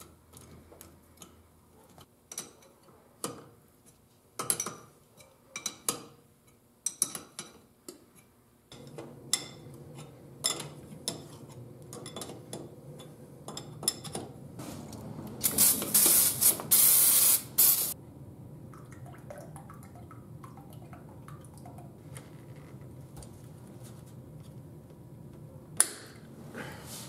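Hand tools knocking and clicking on the brake master cylinder and booster as the master cylinder is fitted. Past the middle comes a loud hiss of spray lasting about two seconds. A steady low hum sets in about a third of the way through.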